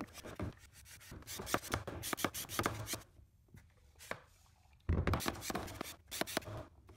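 Hand-pumped 4-liter oil extractor being worked in quick strokes, its plastic piston rubbing and clicking as it builds vacuum to draw used engine oil up the tube. The pumping stops for about two seconds in the middle, then a knock and the strokes start again.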